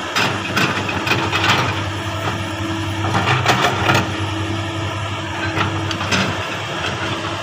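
Komatsu PC200 hydraulic excavator's diesel engine running steadily while the machine digs and swings. Several sharp knocks and clanks sound over the hum through the stretch.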